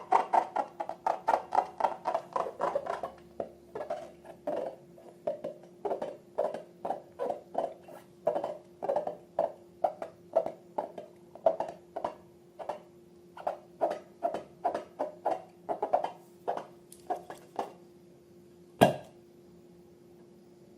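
Slime being worked by hand, making a run of short squishing sounds about two or three a second that stop near the end, followed by one sharp click.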